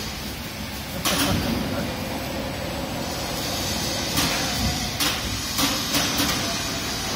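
Continuous sand mixer running with a steady mechanical noise as it discharges silicate-bonded sand. Sharp knocks come once about a second in and several times in the second half.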